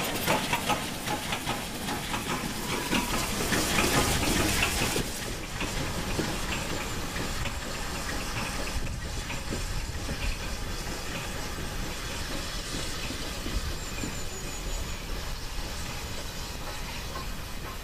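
Steam locomotive and its passenger coaches passing close by, wheels clattering over the rail joints and steam hissing from the cylinders. About five seconds in it cuts to a quieter, more distant steam train approaching.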